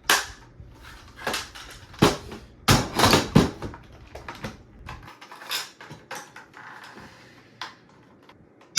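Hard plastic parts of a Nerf blaster being pried and pulled apart: a run of sharp plastic clicks and knocks, loudest about two seconds in and around three seconds in, with lighter taps after.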